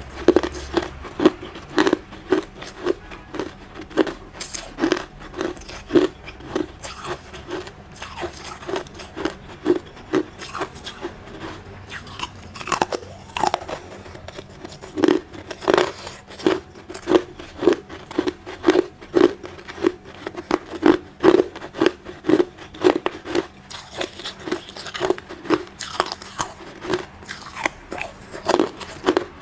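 Close-up chewing of hard ice, a steady run of crunches about two a second as the ice is bitten and ground between the teeth.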